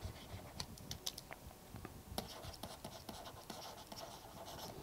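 Faint scratching and scattered light ticks of a stylus writing on a tablet.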